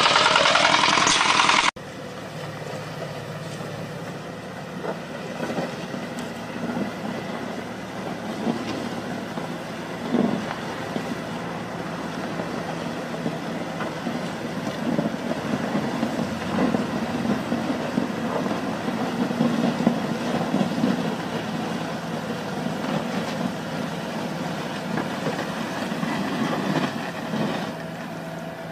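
Bobcat skid-steer loader's diesel engine running steadily under load while its grader attachment spreads and levels gravel, with a faint steady whine. For the first couple of seconds a louder walking-tractor engine pulling a potato digger is heard instead.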